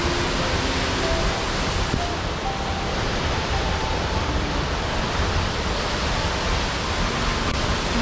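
Steady rushing water, with a few faint, soft held music notes underneath.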